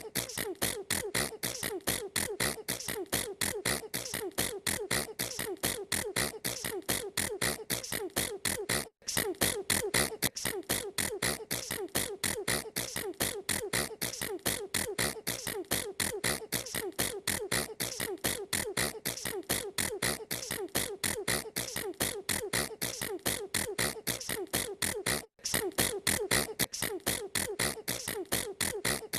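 A girl sneezing over and over in a rapid, very even run of short sneezes, several a second, broken by two brief silences.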